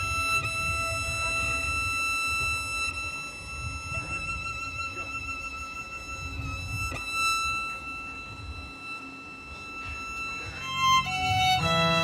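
Violin holding long, high sustained notes over a faint low rumble. Near the end it steps quickly through a few notes, and a lower, fuller chord of held notes comes in.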